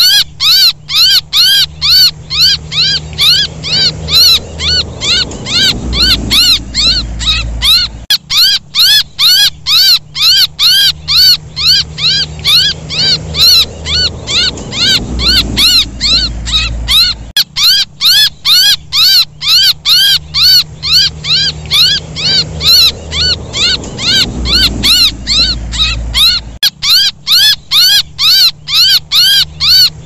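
Looped recording of a baby bird's distress calls: rapid, high chirps, each a short note rising then falling, about three or four a second. The loop restarts about every nine seconds.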